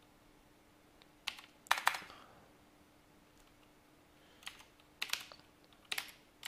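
Computer keyboard typing: a handful of separate keystrokes in small groups with pauses between, as text is entered in a terminal text editor.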